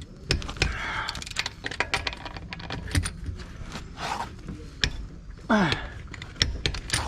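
Hand tools clinking and clicking: a series of irregular sharp metallic clicks and knocks from wrenches and sockets being handled, with a short falling squeal about five and a half seconds in.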